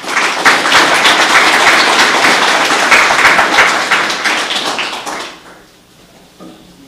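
Audience applauding, a dense patter of many hands clapping that fades away a little after five seconds in.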